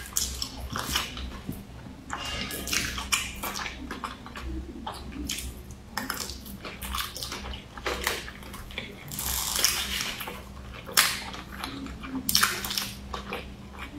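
Close-miked wet chewing and mouth sounds of a person eating spoonfuls of rice and fatty pork, a string of irregular smacks and squelches over a steady low hum.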